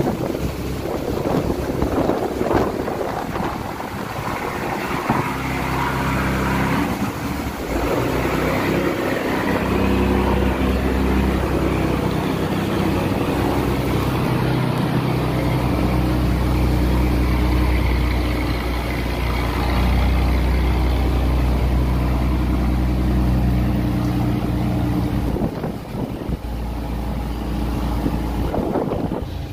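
A boat or barge engine running steadily as the vessel passes, loudest in the middle and easing off near the end, over a steady hiss of rain and wind.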